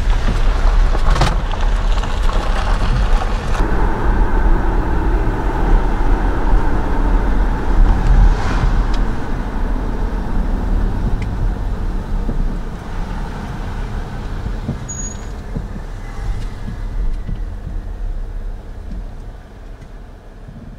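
Road and engine noise inside the cabin of a Jeep Grand Cherokee towing a caravan, steady with a heavy low rumble and a few brief knocks, growing quieter over the last few seconds as the car slows down.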